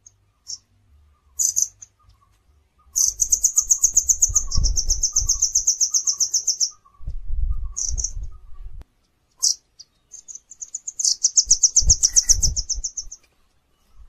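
A small songbird calling in fast, high-pitched trills of about ten notes a second, one run lasting nearly four seconds and a later one about two seconds, with short single chirps between them. Low rumbling thumps sit beneath the trills.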